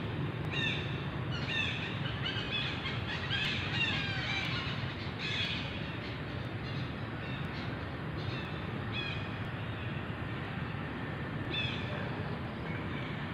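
Short, high chirping animal calls, coming in quick runs and then more sparsely, over a steady low background noise.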